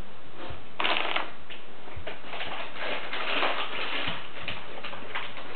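Rustling and crinkling handling noises from a person moving close by, with a few soft low thumps.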